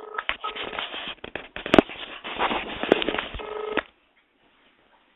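A phone call being placed over a telephone line: crackling and clicking line noise with a ringing tone through it, which stops about four seconds in.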